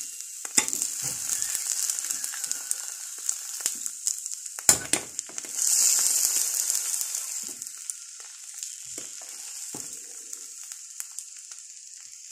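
An egg frying in a small non-stick frying pan, with a steady sizzle that swells for a couple of seconds just past the middle. A metal slotted spatula scrapes and knocks against the pan, the sharpest knock a little before halfway.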